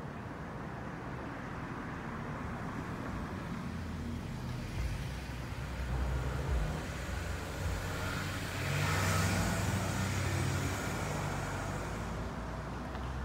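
Road traffic: a car passing on the road, swelling to its loudest about two-thirds of the way through, over a steady low rumble.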